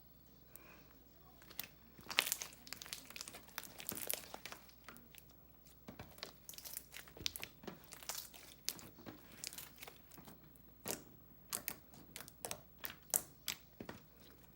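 Handmade slime squished and pulled by hand, giving a quick run of irregular crackling pops that starts about two seconds in.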